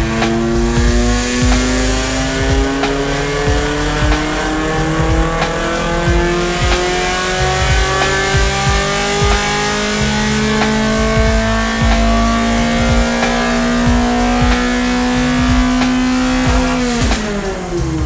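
Nissan race car's engine making a baseline wide-open-throttle pull on a chassis dyno. Its pitch climbs slowly and steadily through the revs for most of the run, then drops quickly near the end as the run finishes and the revs fall.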